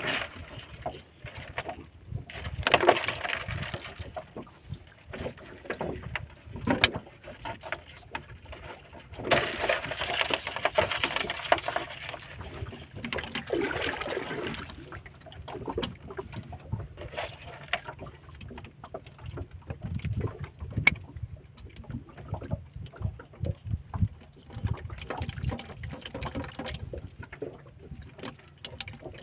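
Live swimming crabs clicking and scraping their shells and legs against a hard plastic tub while hands rummage through them, with scattered sharp clicks and two longer stretches of rustling.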